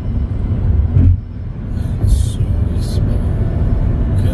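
Steady low road and engine rumble heard inside a car cruising at highway speed, under background music. From about halfway through, short hissy beats come roughly every 0.7 s.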